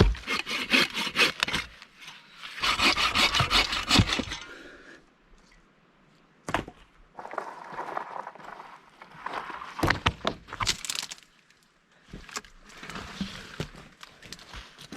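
Dry wood and brush crunching and snapping in two quick runs of crackling, followed by scattered single sharp cracks and rustling.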